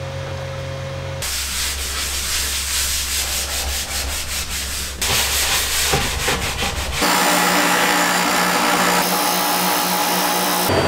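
Hand rubbing across a wood surface, then for the last few seconds a bench disc sander running steadily with a piece of plywood pressed against its sanding disc.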